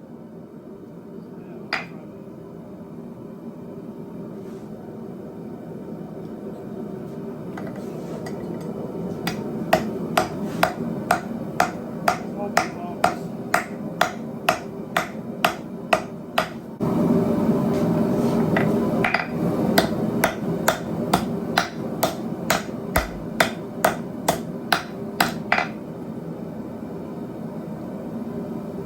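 Blacksmith's hammer striking hot steel on an anvil, a regular run of blows at about two a second over a steady rushing noise.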